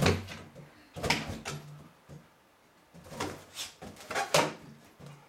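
Inflated balloon being pawed and mouthed by a dog against a wooden hearth shelf: a series of rubbery bumps and scrapes. One comes right at the start, another about a second in, and a quick cluster follows around three to four and a half seconds in.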